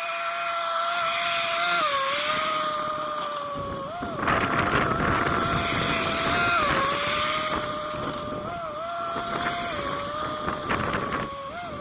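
An engine running steadily with a sustained whine whose pitch dips briefly and recovers several times. Rougher mechanical noise joins in about four seconds in and again near the end.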